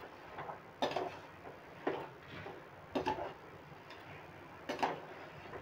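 Metal spoon knocking and scraping against a metal pressure cooker pot while tripe pieces are stirred, a few soft knocks about a second apart.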